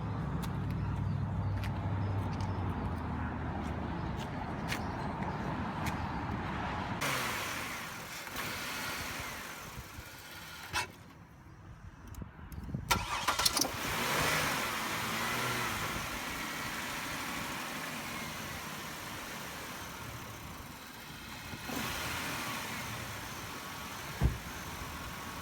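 A 2000 Chevy Impala's 3.8 V6 being started warm, with the starter cranking over two to three tries before the engine catches and runs. This is hard starting when hot, which the owner puts down to a faulty fuel pressure regulator.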